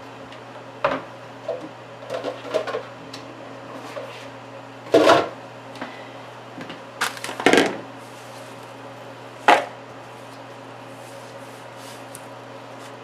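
Kitchen handling clatter as a mixing bowl is fetched: a scattered series of knocks and clunks of cupboard and dishware, the loudest about five seconds in, over a steady low hum.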